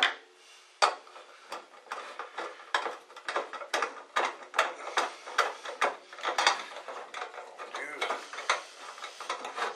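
Hand screwdriver turning a screw that fastens a lamp socket to a high bay light fixture's housing: a run of short clicks and scrapes, two or three a second, one for each twist.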